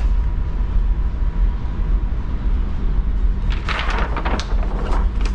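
Steady low rumble with a faint constant hum on a ship's bridge. About three and a half seconds in comes a second or so of paper rustling and scraping as a large paper nautical chart is handled and slid into the chart-table drawer.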